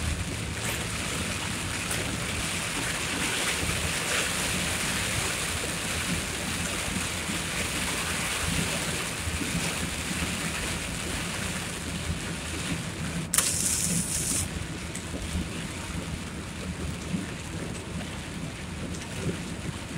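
Heavy downpour: a steady hiss of pouring rain, with a sharp high hiss lasting about a second roughly thirteen seconds in.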